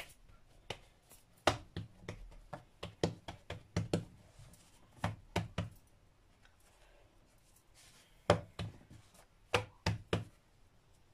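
Hands patting and pressing a potato-stuffed naan dough ball flat on a wooden worktop: irregular clusters of soft knocks, with a lull of a couple of seconds in the middle.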